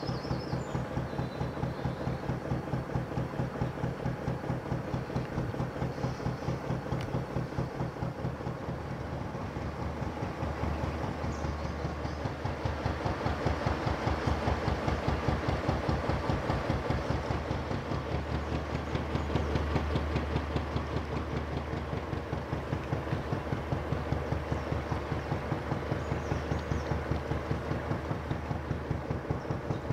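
Narrowboat's traditional Petter McLaren B2 diesel engine running under way, a steady rhythmic chugging beat that grows a little louder around the middle.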